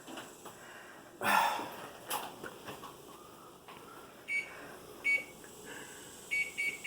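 Microwave oven keypad beeping as the buttons are pressed to set the cooking time: five short beeps from about four seconds in, after a clunk about a second in.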